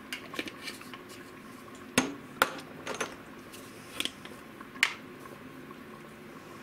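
Small glass spice jars being set down, picked up and unscrewed on a stainless-steel counter: a scattered run of sharp clicks and knocks, the loudest two about two seconds in, over a faint steady hum.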